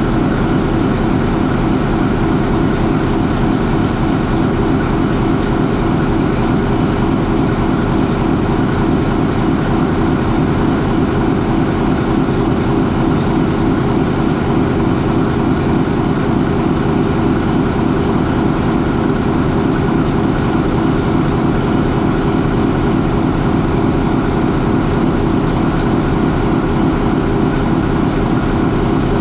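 A MAN 20V28/33D STC twenty-cylinder medium-speed marine diesel main engine running steadily at idle, about 400 RPM. The sound is loud and even, with no change in speed.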